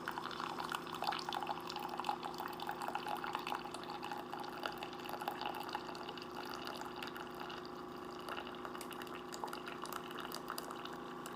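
Keurig K-Café single-serve coffee maker brewing a 12-ounce cup: coffee streaming and dripping into the mug over the machine's steady pump hum.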